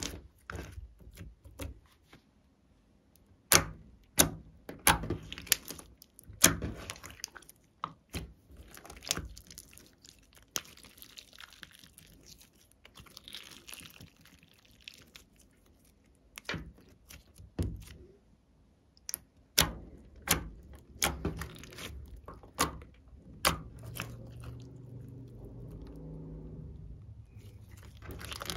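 Hands squeezing, stretching and folding glossy gold glitter slime: a long run of sharp clicks and pops with fine wet crackling between them.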